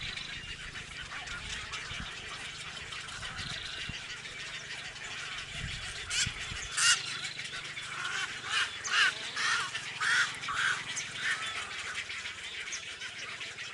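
Many birds calling together in a dense, continuous chatter, joined from about six seconds in by a run of louder calls repeated every half second or so.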